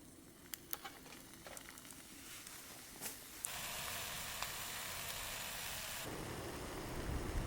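Green onion and pork sizzling in a frying pan over a campfire. The sizzle starts suddenly about halfway through, after a few light clicks, and a lower rushing noise takes over near the end.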